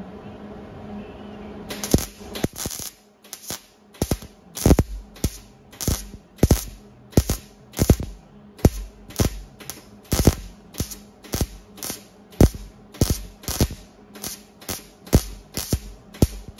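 Wire-feed (MIG) welder stitch-welding a steel grille in short, crackling bursts, about one and a half a second, starting about two seconds in after a steady low hum.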